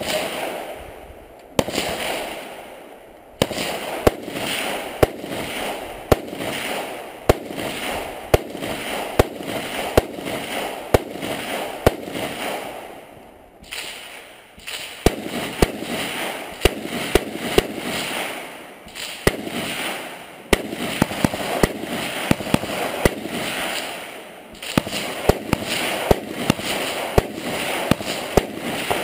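Semi-automatic rifle fired in rapid strings of sharp shots, several a second, with a brief pause about halfway through and another near the end.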